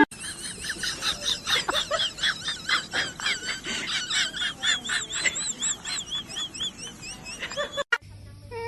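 Many rapid, high-pitched animal chirps or squeaks overlapping one another, cutting off suddenly near the end.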